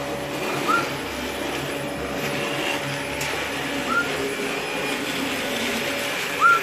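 Blue-fronted amazon parrot giving three short whistles a few seconds apart, each a quick rising-then-falling note, the last the loudest. Under them runs a steady mechanical hum.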